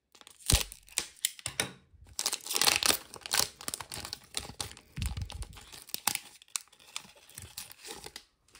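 The crimped foil wrapper of a 2024 Select Footy Stars trading-card pack being torn open along its seal and crinkled in the hands: a run of irregular crackles and rips, densest about two to three seconds in.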